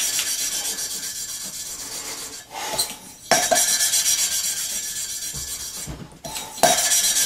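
A valve being lapped into its seat in a Land Rover cylinder head: the valve face grinds against the seat through lapping paste as a lapping stick is spun rapidly back and forth between the palms, a gritty rasping rub. It comes in three spells, with short breaks about two and a half and six seconds in as the valve is lifted and set back down, grinding toward a gas-tight seal.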